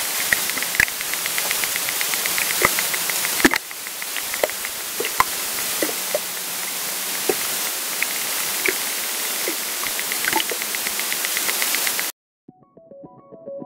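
Underwater hydrophone recording: a steady hiss with rapid, evenly spaced trains of clicks and scattered louder pops. The recordist takes the clicks for echolocation from an unknown animal in the lake. The recording cuts off about twelve seconds in.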